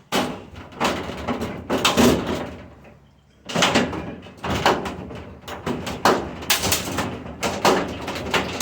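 Stainless steel restaurant dishwasher being knocked and pried apart: repeated metal bangs and clatter, with a short pause about three seconds in.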